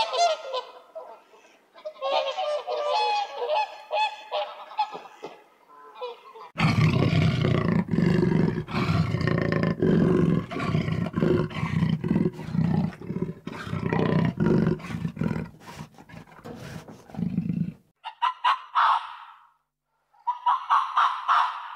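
A series of animal calls: goose-like honking at first, then a long, louder, deeper noisy stretch, then short pulsed honks near the end.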